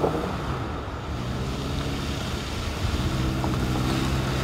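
Cars and a pickup truck driving slowly through floodwater on a street: engines running under the swish of water churned up by the wheels. The engine hum grows stronger about three seconds in.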